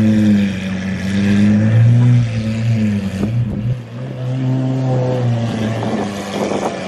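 Lamborghini Aventador SVJ's naturally aspirated V12 through a Gintani aftermarket exhaust, accelerating hard away: the revs climb in several pulls, each broken off briefly at an upshift, and the note eases off near the end as the car pulls away.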